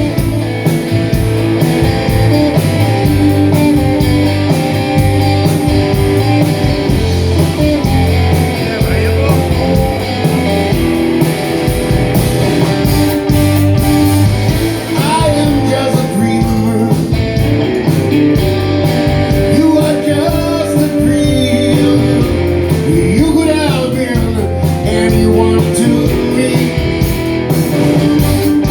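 Blues-rock band playing live: a singer over electric guitar and a steady drum beat.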